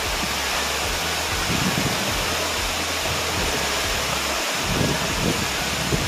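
Waterfall dropping from high up a rocky gorge: a steady rush of falling water.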